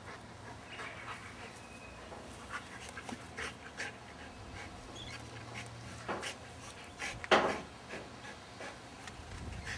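Two Old English Sheepdogs wrestling in play: panting and short scattered scuffling sounds, with one louder sound about seven seconds in.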